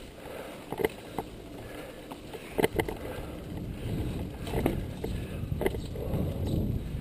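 Mountain bike ridden over a bumpy grass trail: a steady rumble of tyres and moving air, broken by several sharp knocks and rattles as the bike jolts over bumps.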